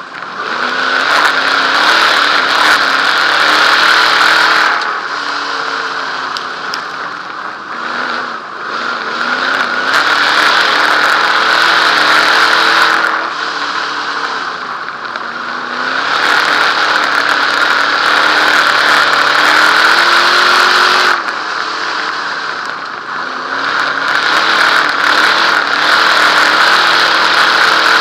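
Dirt modified race car's V8 engine heard from the cockpit at racing speed. It goes hard on the throttle four times down the straights and lifts for a few seconds between for the turns, its pitch climbing and falling with each lap.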